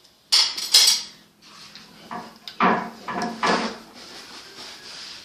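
Cutlery clinking and scraping against dishes: a few sharp clinks in the first second, then another cluster of knocks and scrapes past the middle.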